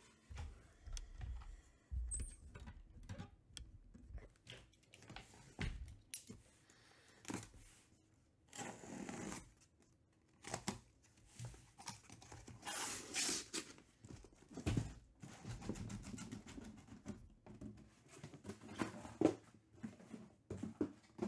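Packing tape on a cardboard shipping case being slit with a blade and torn away, with cardboard scraping and rustling. Irregular knocks and thumps as the shrink-wrapped boxes inside are handled and set down on a table.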